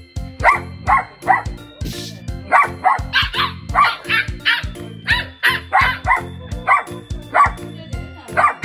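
Miniature dachshund barking again and again in short, sharp barks, about two a second, over background music.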